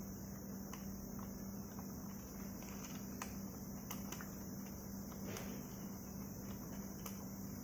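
Faint small clicks of ribbon-cable connectors being unplugged from a motherboard, a few scattered sharp ticks, over a steady low hum and high hiss.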